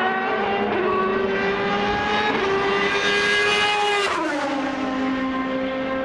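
Rebellion Lola B12/60 LMP1 prototype's Toyota 3.4-litre V8 at high revs as the car accelerates toward and past. Its pitch climbs steadily, drops sharply about four seconds in as it goes by, then holds lower as the car pulls away.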